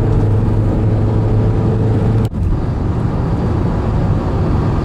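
Inside a car cruising at motorway speed: steady road noise with a low hum. About two seconds in there is a brief dropout, after which the hum is gone.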